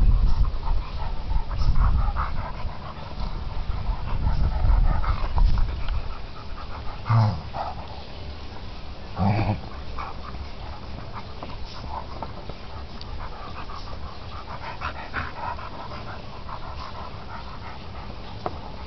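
Entlebucher Mountain Dog panting and scuffling while playing with a ball on his back, with two short, low pitched vocal sounds about seven and nine seconds in.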